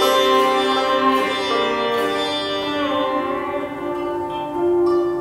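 Sitar playing sustained, ringing notes, with a pitch bend about three seconds in and a louder new note struck near the end.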